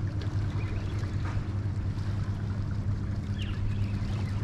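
A steady low hum, like a motor running, with wind noise on the microphone.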